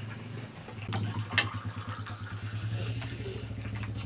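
Tea pouring from a metal kettle into small glasses, with two sharp knocks of a metal spoon against a pot of rice about a second in, over a low steady hum.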